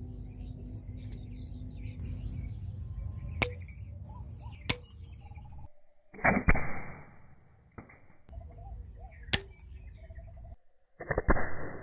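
Homemade bamboo slingshot gun being loaded and shot with glass marbles: several sharp clicks, and two loud, short rushing bursts, one about midway and one near the end.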